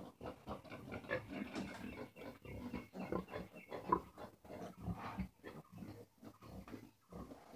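Piglets and a sow grunting, a dense run of short, irregular grunts.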